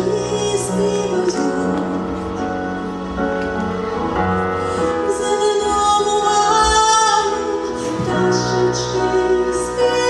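A woman singing live into a microphone over keyboard accompaniment, holding long notes; her voice climbs to its highest, loudest note about two thirds of the way through.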